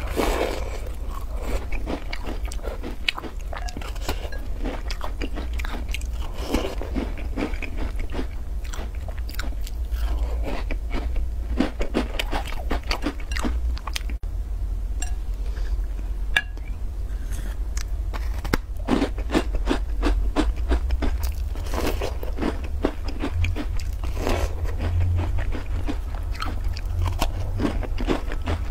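Close-miked biting, crunching and chewing of crisp black sesame taosu cookies, some of them dipped in coconut milk, with irregular crunches throughout. A steady low hum runs underneath.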